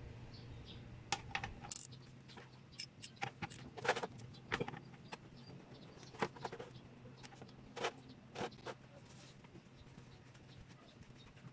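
Steel socket and extension bar clinking as they are handled and fitted together: scattered light metallic clicks and taps at an uneven pace, a few ringing briefly.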